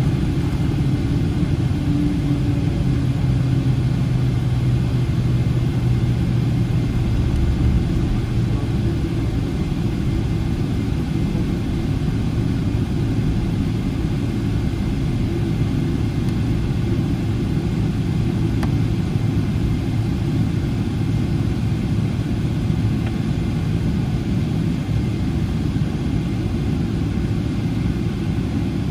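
GE90-115B turbofan engines of a Boeing 777-300ER at low taxi thrust, heard inside the cabin as a steady low rumble. A low hum in it is strongest over the first several seconds.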